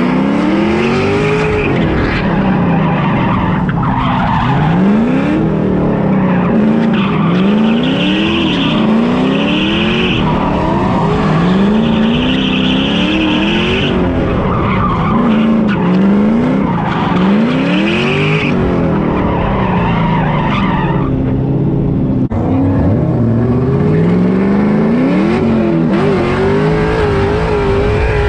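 Drift car engine revving up and falling back again and again while the car slides. The tyres squeal in several stretches.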